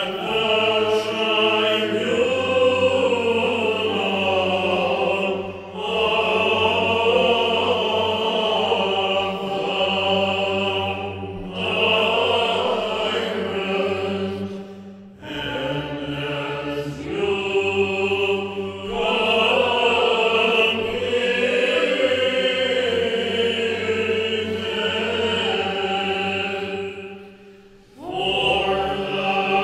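Byzantine chant of a doxastikon in the plagal second mode: a melismatic sung melody over a steady low held drone, in long phrases with brief breaks between them.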